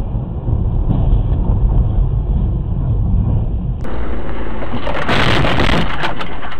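Driving noise recorded by a car's dashcam from inside the cabin: a steady low rumble of road and engine. About four seconds in it switches to a louder, brighter rush of noise.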